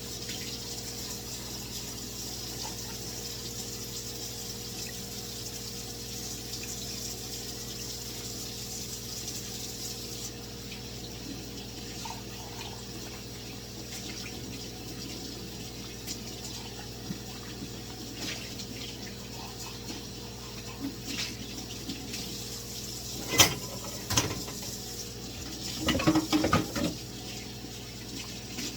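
Kitchen tap running steadily into a sink, with dishes clinking: two sharp knocks about two-thirds of the way through and a short run of clattering a couple of seconds later.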